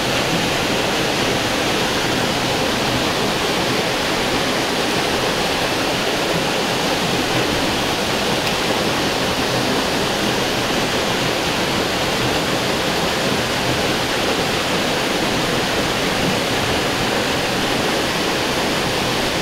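Stream water rushing steadily, an even, unbroken hiss with no breaks or changes.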